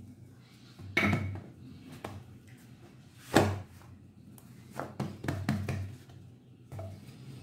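Irregular knocks and thuds as a wooden rolling pin and hands work a sheet of dough on a granite countertop, the loudest a little after three seconds in and a quick run of knocks around five seconds.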